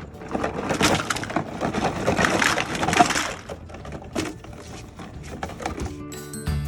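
Toy packaging being torn and crumpled open, a dense crackling for about three seconds, then a few scattered clicks and rustles. Music starts near the end.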